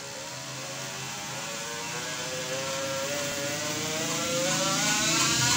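Kubota RD 85 DI single-cylinder diesel engine revving up, its pitch and loudness rising steadily.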